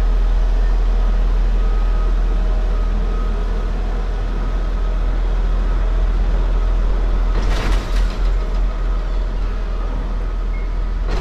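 Railway turntable slowly rotating with a locomotive aboard: a steady mechanical drone with a faint whine and a heavy low rumble, and a short rush of noise about eight seconds in.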